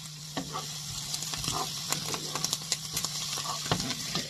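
Chopped vegetables sizzling in olive oil in a frying pan on high heat, with a steady hiss. A wooden spoon stirs them, scraping and clicking against the pan at irregular moments.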